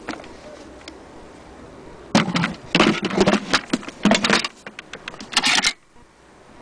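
Handling noise: a small click, then from about two seconds in an irregular run of loud rattling, knocking and rubbing as a Singer Featherweight 221K sewing machine and its carrying case are handled. It stops abruptly a little before six seconds.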